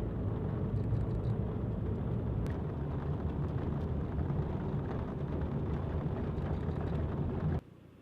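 Toyota Tacoma pickup driving, a steady low rumble of engine and road noise that stops abruptly near the end.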